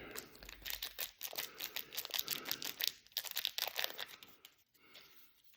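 Trading cards being handled and flipped through: a quick run of dry rustling and sliding strokes for about four seconds, then fainter.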